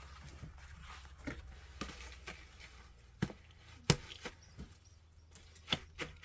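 A few sharp, irregular knocks and taps in the second half, over a faint low hum.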